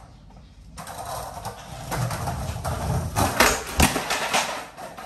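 Skateboard wheels rolling across a tiled floor, then a few sharp clacks as the board is popped into a nollie smith grind attempt on a flat rail and clatters away in a bail.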